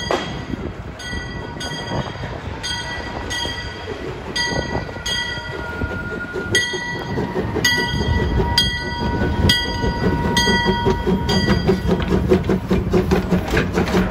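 Steam locomotive bell ringing, about two strokes a second, each stroke ringing on, and stopping a couple of seconds before the end. Under it the locomotive's chuffing and running gear grow louder over the last several seconds as it draws close.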